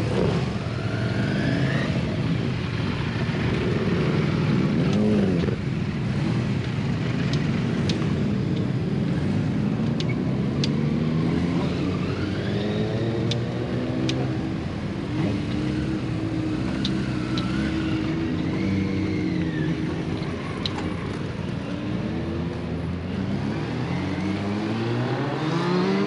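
Several motorcycle engines idling and revving as riders pull away one after another, the pitch of each rising and falling as it accelerates off.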